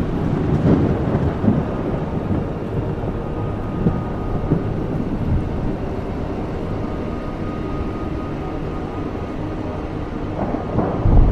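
Steady rain with low rumbling of thunder, swelling into a louder rumble near the end.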